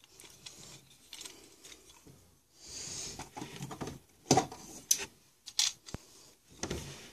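A plastic Transformers figure being handled: a brief rustle, then a handful of sharp clicks and knocks.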